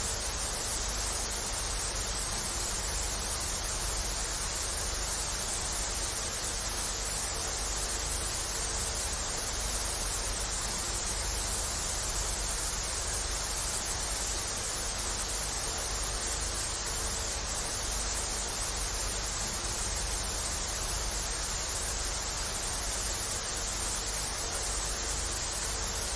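Television static: the steady hiss of an untuned analogue TV, constant in level throughout.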